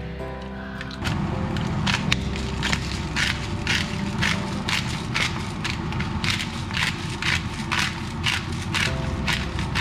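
Hand pepper mill grinding black pepper, about two or three crunches a second, starting about a second in.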